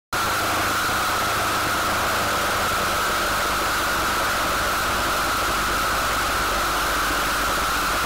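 Brush cutter running steadily at high speed, its tipped saw blade cutting into a wooden board. There is a constant high whine over a broad hiss.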